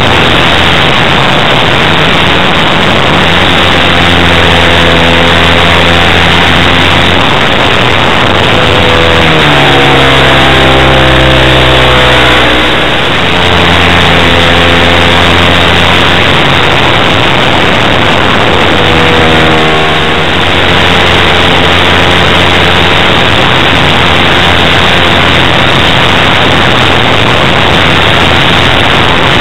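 OS FS-120 Surpass III pumped four-stroke glow engine turning a 16x6 propeller, running at high power and heard from on board the model. Its pitch falls and then jumps back up twice, around ten seconds in and again around twenty seconds in, as the engine speed changes in flight.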